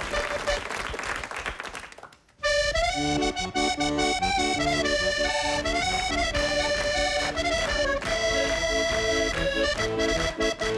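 Studio audience applauding, the clapping dying away about two seconds in; just after, a diatonic button accordion starts playing a solo tune that carries on steadily.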